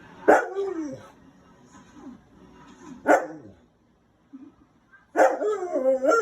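A dog barking three times. The first bark slides down in pitch, the second is short, and the last, near the end, is longer and wavers up and down.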